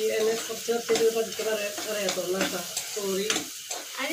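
Steel spatula stirring and scraping food frying in a wok, with sizzling and sharp clicks of metal on the pan. A woman's voice holds long drawn-out tones over it.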